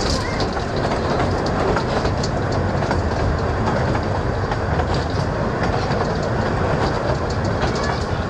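Narrow-gauge (2 ft gauge) passenger train running, heard from aboard a carriage: a steady rumble of the wheels on the track with a scatter of sharp clicks, the clickety-clack of wheels over rail joints.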